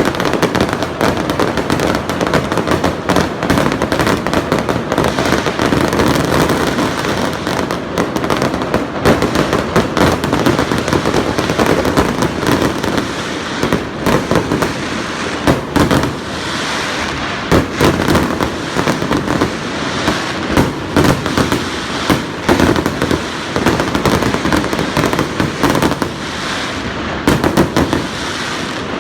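Fireworks display in a dense barrage: continuous crackling packed with rapid sharp bangs, loud and unbroken.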